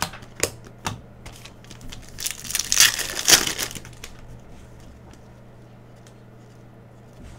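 Foil trading-card pack wrapper crinkling and crumpling for about two seconds in the middle, after a few light clicks of cards being handled.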